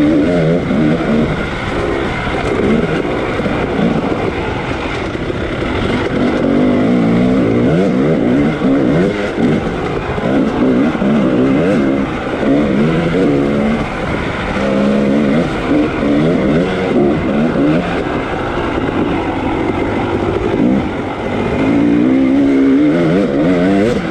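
Dirt bike engine under racing throttle, its pitch climbing and falling again and again as the rider accelerates, shifts and backs off on the trail.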